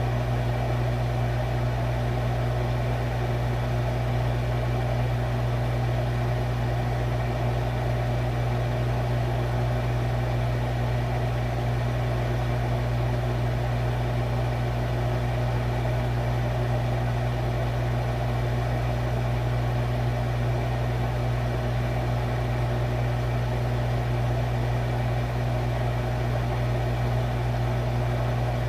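Refrigerator running with a steady, unchanging low hum from its compressor.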